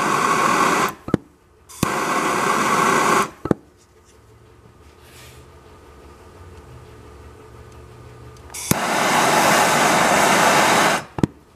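Gas soldering torch flame hissing in three bursts of about one, one and a half and two seconds, each starting and stopping with a sharp click, as it heats a copper tube joint for soft soldering.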